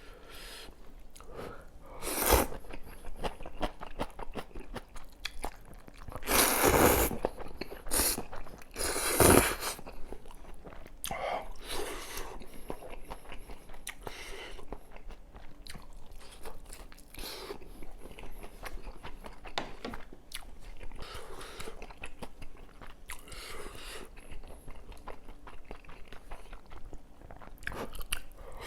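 A person eating noodles and potato pancake close to the microphone: steady chewing and biting with wet mouth sounds, and a few louder, longer sounds about 2, 7 and 9 seconds in.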